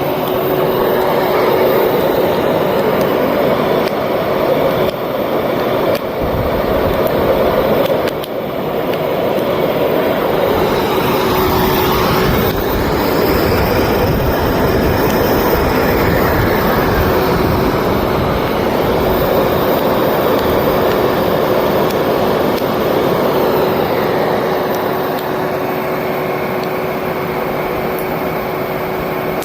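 An old vacuum cleaner's motor running as the air blower of a homemade coal forge: a steady whine over a loud rush of air.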